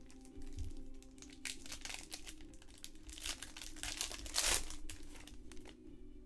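Trading-card box packaging being torn open and its wrapper crinkled: a run of irregular crackling rustles, the loudest about four and a half seconds in.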